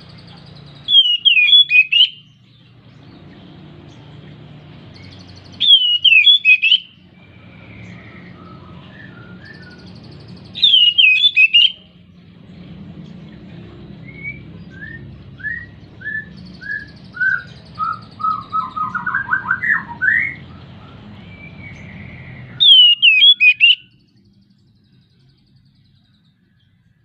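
Oriental magpie-robin singing its breeding-condition song. Four loud, short warbling phrases come several seconds apart. Between the third and fourth, a quieter run of rising notes quickens into a trill.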